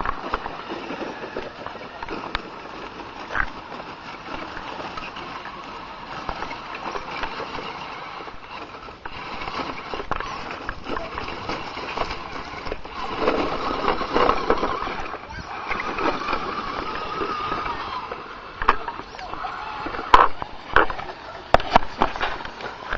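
Tamiya Scania R620 radio-controlled truck driving over gravel and dirt: its electric motor and gearbox whirring and its wheels rolling over the stones, the whine louder through the middle, with a few sharp clicks and knocks near the end.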